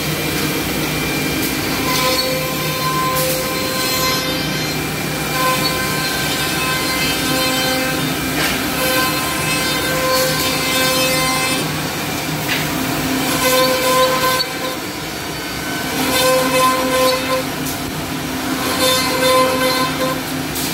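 Woodmaster four-head CNC mortising machine at work: its spindles run steadily while the bits drill and oscillate mortises into curved wooden workpieces. A higher whine comes and goes every two or three seconds with each cut.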